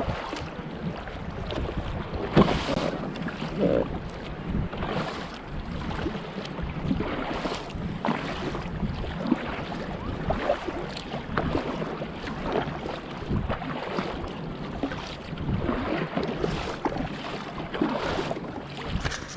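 Water lapping and splashing around a kayak, with small irregular knocks against the hull and wind on the microphone.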